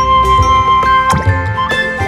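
Background music: light instrumental melody over a steady beat.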